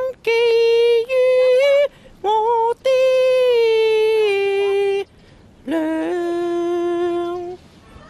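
A woman singing a slow phrase of long held notes with short breaks between them, the melody stepping down in pitch towards the end.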